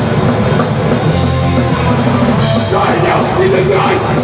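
A rock band playing loudly live, with a drum kit and cymbals.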